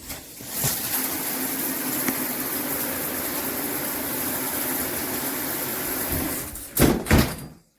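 Handheld high-pressure shower head spraying water: a steady hiss that stops about six and a half seconds in, followed by two brief knocks.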